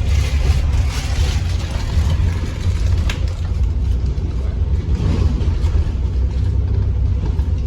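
Bus engine and road noise heard from inside a moving bus: a steady low rumble with a hiss of tyres and wind above it.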